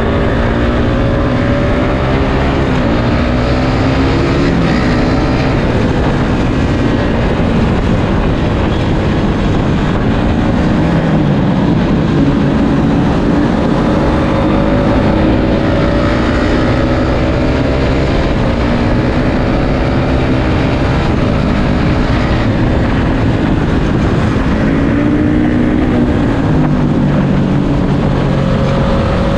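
Suzuki Satria FU 150 fuel-injected single-cylinder engine running hard on the road, its pitch climbing and dropping again and again as it accelerates and changes gear, over a steady rush of wind and road noise.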